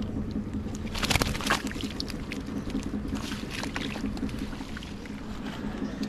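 Fish thrashing and splashing at the water's edge in a freshly hauled gill net, with wet net dragging through water, in a couple of noisy spells about a second in and around three to four seconds. A steady low hum runs underneath.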